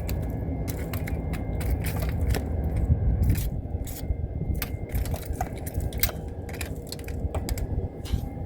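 Irregular metallic clicks, scrapes and crunching of hands and tools working at an HVAC compressor's electrical terminals, over a steady low rumble with a faint steady hum.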